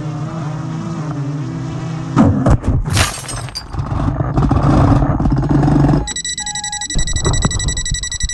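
Small quadcopter drone's propellers humming, then at about two seconds it crashes: the spinning propellers strike and clatter through plants and grass while the motors keep running. Near the end a steady high electronic tone with a short break sounds.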